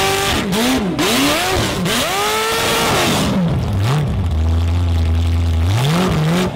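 A formula offroad race car's engine revving hard in quick swoops up and down, over a rushing noise, for about three seconds. It then drops to a low steady rumble and climbs again near the end.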